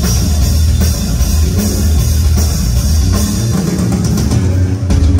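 Rock drum kit played live in a fast, dense drum solo: a steady low drum rumble under rapid drum hits and a wash of cymbals, loud throughout.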